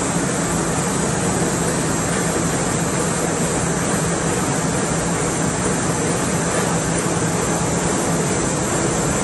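Steady machine noise: a constant low hum under a broad, even whir that does not change or pause.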